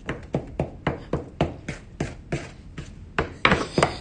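A mixing utensil beating a creamed butter, sugar and vanilla mixture and knocking against the side of a glass mixing bowl, about four knocks a second, with the loudest knocks near the end.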